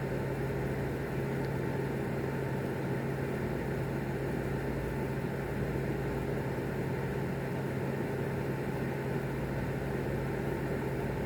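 Steady low mechanical hum over an even hiss, unchanging throughout, with no thunderclap or other sudden sound.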